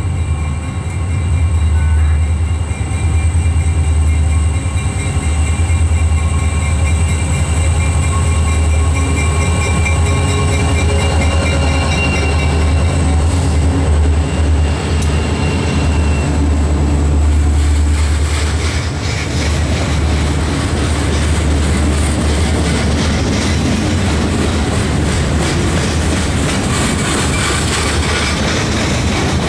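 Freight train passing close: two diesel locomotives go by with a loud, deep, steady engine rumble. About two-thirds of the way through, boxcars take over, rolling past with wheels clacking over the rail joints.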